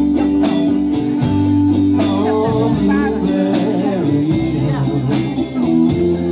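Live band music with guitar over held bass notes and a steady drum beat, at about four strokes a second.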